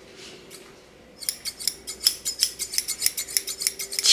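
Scissors snipping rapidly, about seven clicks a second, starting about a second in, over a faint steady hum.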